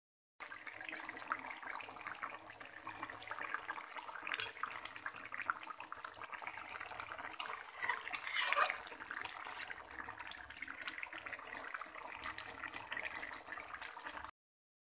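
Thin snakehead fish and potato curry boiling in a wok: a steady crackle of bursting bubbles, a little louder for a moment about eight seconds in.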